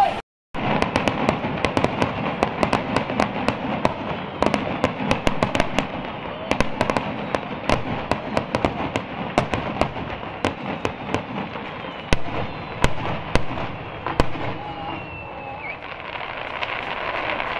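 Aerial firework shells bursting, with dense rapid crackling pops and sharp bangs. The cracks thin out near the end.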